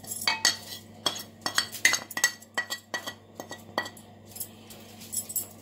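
Metal spoon scraping and tapping against a ceramic plate and a glass bowl as spices are knocked off into the bowl: a quick run of clinks and taps, some with a brief ring, thinning out after about four seconds.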